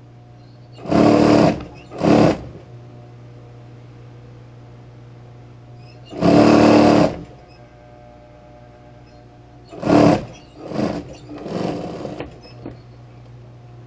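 Electric sewing machine stitching a zipper onto fabric in short runs: two brief runs about a second in, a longer run of about a second near the middle, then a few quick short runs near the end. A steady low hum continues between runs.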